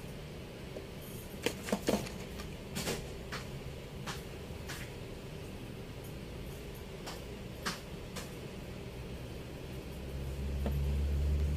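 Scattered light clicks and taps from a cardboard tube of coloured pencils being handled, over a steady low room hum. A low rumble swells near the end.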